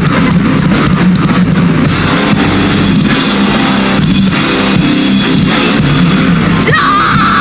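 Heavy metal band playing live without vocals: distorted electric guitars over fast drumming on a drum kit. Near the end a high guitar note slides up and is held.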